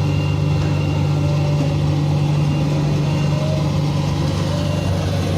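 Combine harvester working a wheat field: its diesel engine and threshing machinery give a steady, loud, even drone with no change in speed.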